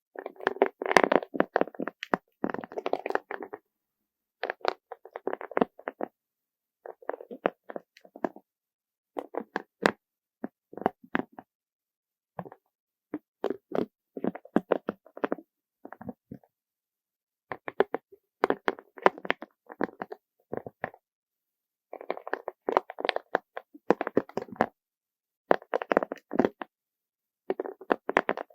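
Colourful beads packed onto a trigger plate clattering gently against each other. The sound comes in runs of quick clicks a second or two long, about ten of them, with short pauses between.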